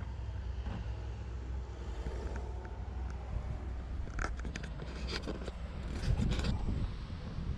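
Steady low rumble with a cluster of sharp clicks and scrapes between about four and six and a half seconds in.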